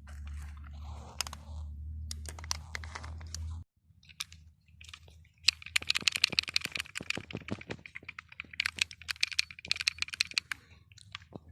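Small metallic clicks and rattles from a pistol being handled, with a low hum that cuts off suddenly about a third of the way in. They thicken into a dense, rapid run of clicking through the second half.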